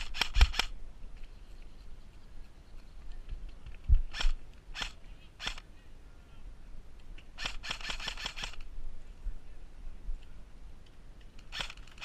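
Airsoft guns firing: sharp snapping shots, some single and spaced about half a second apart, with a rapid string lasting about a second in the middle.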